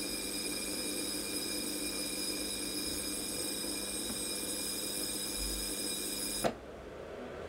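Ionophone (corona-discharge plasma speaker) buzzing steadily with a set of fixed whining tones and hiss, and no music playing through it. About six and a half seconds in there is a click and the buzz cuts off suddenly, leaving only a dull low noise.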